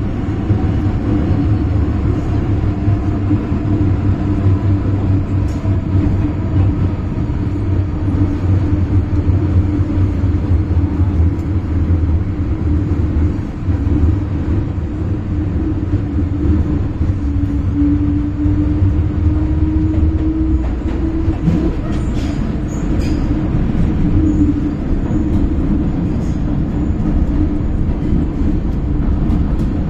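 MTR M-Train electric multiple unit (set A171/A216) running through a tunnel, heard inside the car: a steady rumble of wheels and car body. Over it lies a steady motor tone that rises a little past the middle, with a few faint ticks in the second half.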